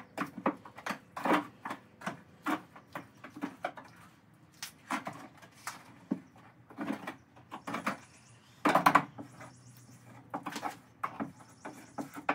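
Scattered small clicks, taps and scrapes of hand work at a boat's transom, with a louder burst of knocking about nine seconds in.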